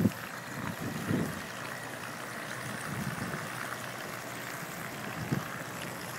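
The twin 380 brushed electric motors of a small RC speedboat running steadily at a distance while it tows a buoy, heard as a faint even whine, with a few soft low rumbles.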